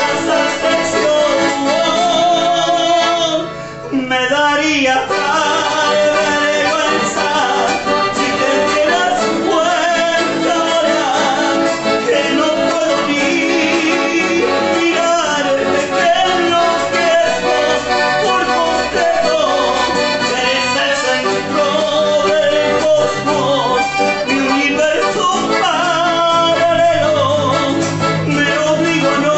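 Live chamamé played on accordion and acoustic guitar, with a man singing over it. The music breaks off briefly about four seconds in, then carries on.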